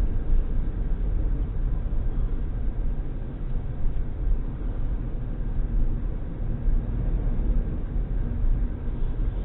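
Steady low rumble of a van driving, heard from inside the cabin: engine and road noise with no sudden events.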